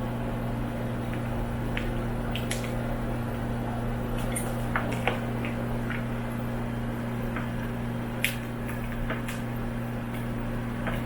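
Cockatiels cracking millet seeds with their beaks: scattered small clicks and crunches, the sharpest about eight seconds in, over a steady low hum.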